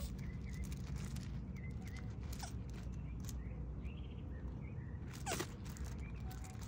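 Tortoise shells knocking together a few times as two male tortoises ram and shove each other, the loudest knock about five seconds in, over a steady low rumble.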